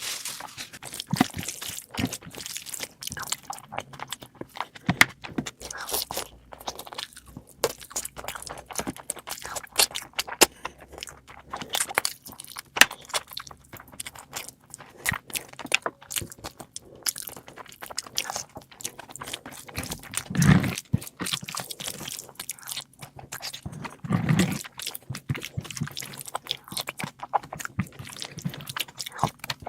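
Close-miked eating of meat curry: continuous, irregular chewing with crunchy bites and wet mouth clicks. Two deeper, louder sounds come in the last third.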